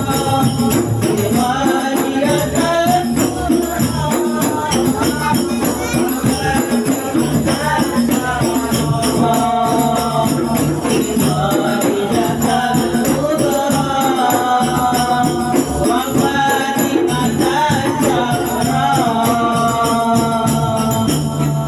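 Voices singing an Arabic Islamic devotional song (shalawat) in unison, over steady rattling hand percussion.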